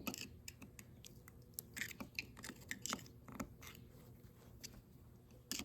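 Scattered small clicks, taps and scrapes of metal parts and a screwdriver being handled, irregular and fairly faint.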